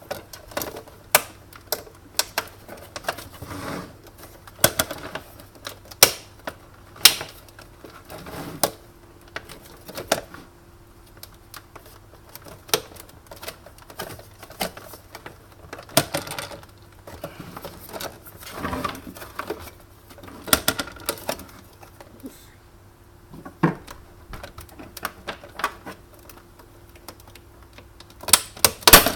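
Irregular clicks, knocks and rattles of a Sunbeam Cafe Ristretto EM2300 espresso machine's plastic and metal housing parts being handled and taken apart by hand, with a few louder knocks near the end.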